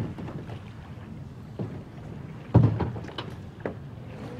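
Hollow plastic sit-on-top kayak knocking against the boat as it is lifted over the side: several dull thumps, the loudest about two and a half seconds in, over a steady low rumble.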